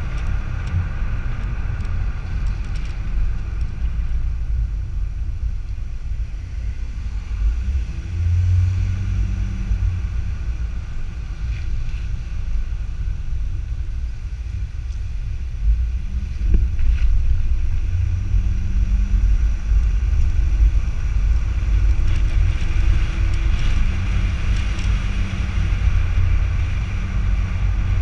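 A car driving along an asphalt road, heard through a camera mounted on the outside of the car: a steady, loud low rumble of wind and tyre noise, with a faint hum that rises and falls now and then.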